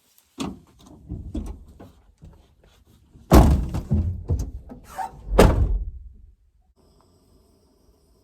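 A series of knocks and heavy thumps, the two loudest about three and five seconds in, then quiet with a faint steady hum.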